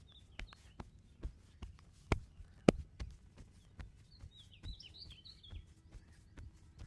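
Hands striking the body in massage taps, a steady rhythm of about two to three sharp strikes a second, with two much louder smacks a little past two seconds in. Birds chirp briefly in the background about halfway through.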